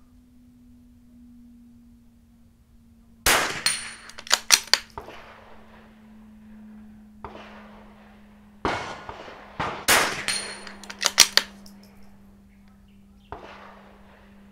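A .22LR bolt-action rifle fired about ten times in uneven groups, with steel targets ringing after hits. Several shots come in quick pairs under a second apart, with longer gaps between the groups.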